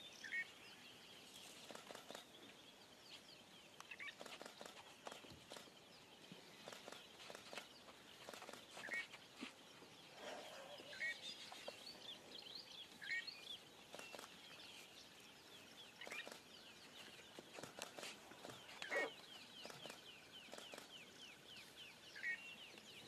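Faint birdsong: a short rising call repeated every two seconds or so, over a background of quicker, higher chirps and a few soft clicks.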